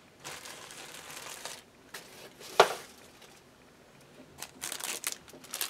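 Clear plastic packaging crinkling and rustling as fibre packets are handled, with one sharp tap about two and a half seconds in.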